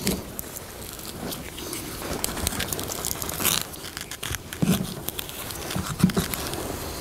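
Fiberglass casting tape crackling and tearing as a cast and glued wood shoe are pried off a horse's hoof with a metal bar, in irregular sharp cracks and crunches.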